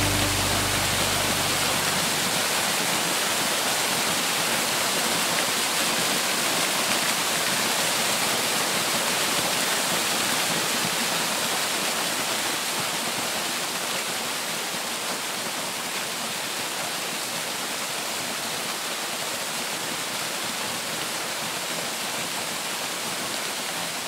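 Waterfall: the steady rush of falling water, easing slightly about halfway through.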